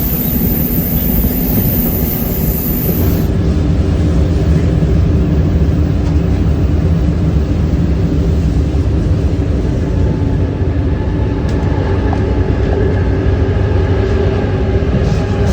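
Passenger train running along the line: a steady, loud rumble of wheels and running gear. A steady whine comes in partway through.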